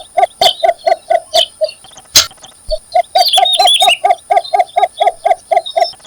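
Birds calling: one repeats a low note in a fast, even series of about four or five a second, pausing briefly about two seconds in, while a quick cluster of high squeaky chirps comes around three seconds in. A sharp click sounds just after two seconds, over a faint steady high whine.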